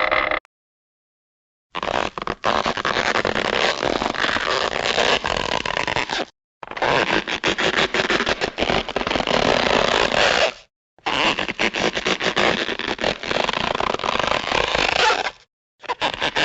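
Warner Bros. cartoon sound effects played in turn: three separate rough, crackling noise effects of about four seconds each, broken by short silences, with another starting near the end.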